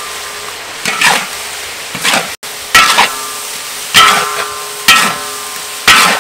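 Metal spatula scraping and knocking against a large wok about once a second as pork and chilies are stir-fried, each stroke ringing briefly, over a steady sizzle.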